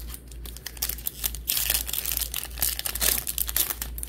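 Foil wrapper of a baseball trading-card pack crinkling and tearing as it is ripped open by hand, a dense run of crackles that is loudest in the middle.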